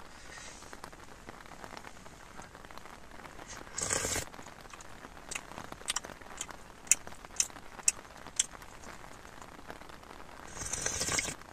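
A spoon clinking and scraping in a bowl of hot milk, with a run of light sharp taps in the middle. A breathy slurp of a hot spoonful comes about four seconds in and again near the end.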